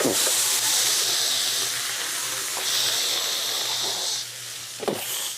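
Steady hissing sizzle of food cooking on a hot grill, louder for about a second and a half past the middle.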